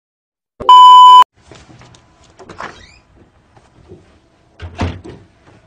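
A loud, steady, high-pitched test-tone beep lasting about half a second, the kind played over TV colour bars. It is followed by faint rustling and a single thump near the end.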